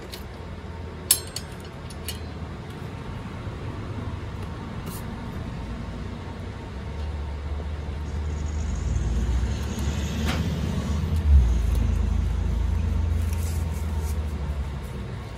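A sharp metallic click about a second in as the table saw's blade fixing is worked by hand. Then a low rumble swells from about seven seconds in, with a thump in the middle, and fades near the end.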